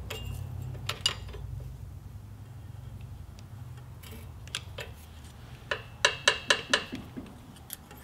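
Hand tools on a VW air-cooled engine's valve adjuster: metal clinks and clicks as a wrench works the adjuster lock nut. A couple of clicks come about a second in, then a quick run of about six sharp metallic clicks a little before the end.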